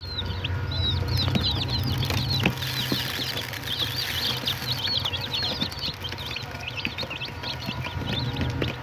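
A box full of chicks peeping nonstop: many fast, high, downward-falling cheeps overlapping one another, a little sparser in the second half, with occasional light knocks.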